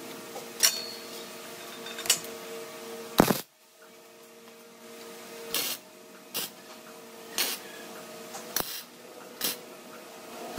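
Scattered short metal taps and clanks, about eight in all, as square steel tubing is fitted against a welded steel frame, over a steady machine hum. The loudest clank comes about three seconds in.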